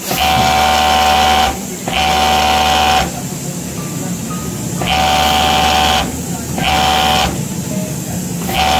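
Overlock sewing machine (serger) running in short stop-start runs of about a second each, five times, a steady motor hum and whine that cuts off between runs as it stitches and trims a fabric edge.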